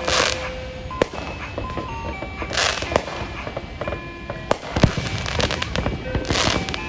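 Fireworks going off: sharp bangs, and three crackling bursts a few seconds apart.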